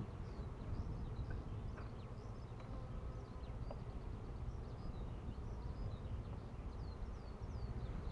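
Honey bees buzzing around their hives, with many short high bird chirps throughout over a steady low rumble.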